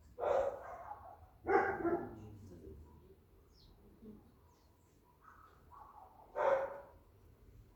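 Three short barks: two close together at the start and a third about six and a half seconds in.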